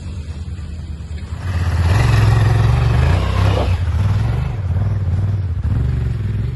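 Honda XL1000 Varadero's V-twin engine running, swelling louder with a rush of noise about a second and a half in, then easing back after about four seconds.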